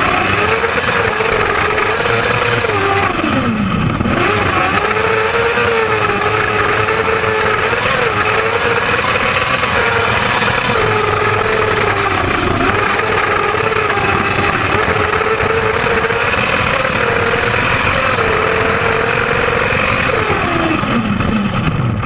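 600 cc kart cross motorcycle engine revving hard under racing load, heard from inside the cockpit. The revs drop sharply and climb back about four seconds in, dip briefly a few times through the middle, and fall away again near the end.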